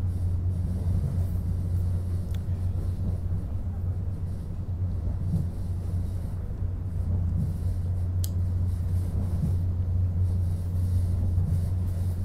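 Steady low rumble of the Talgo 250 "Strizh" passenger train in motion, with two faint clicks, about two and eight seconds in.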